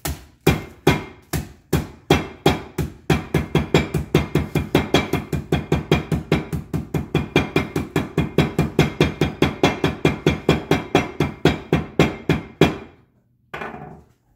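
A mallet pounding stale bread wrapped in a cloth towel on a countertop, crushing it into breadcrumbs. It is a rapid run of blows, about two a second at first and then about four a second, which stops abruptly near the end.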